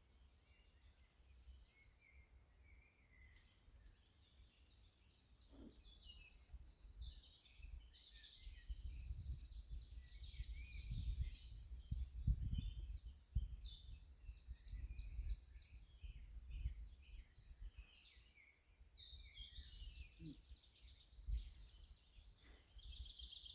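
Faint songbirds singing repeated trilled phrases, over a low rumble of wind on the microphone that swells about halfway through.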